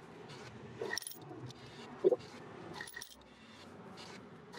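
Coins clinking and dropping: a few sharp metallic chinks, the loudest just after two seconds in, as change is being got at a car wash.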